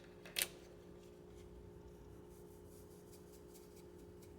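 Quiet kitchen room tone with a faint steady hum, broken by one brief knock about half a second in.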